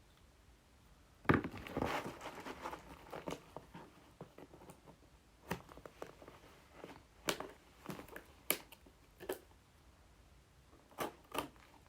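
A package being opened by hand: crinkling and tearing of wrapping, with a louder rustle about a second in and scattered clicks and knocks after it.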